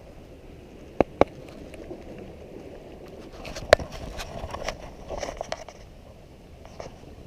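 Sharp knocks and clicks with light scraping. Two knocks come close together about a second in and a louder one near four seconds, with smaller ticks around them.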